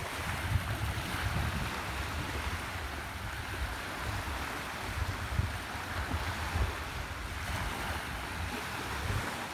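Small waves breaking and washing up on a gravel shore, with gusty wind rumbling on the microphone.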